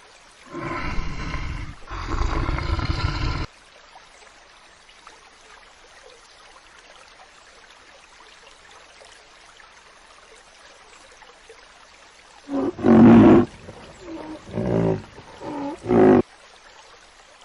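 Animal calls: two long, loud, rough roars in the first few seconds, then a quiet stretch, then a run of four or five shorter pitched calls near the end.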